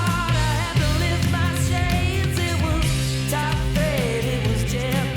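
Rock intro music with a singing voice, guitars and drums.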